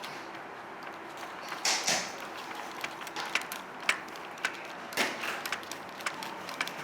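Small clicks and knocks of plastic and metal tank parts being handled and pressed into place on the chassis. There is a brief scraping rustle about two seconds in and another about five seconds in.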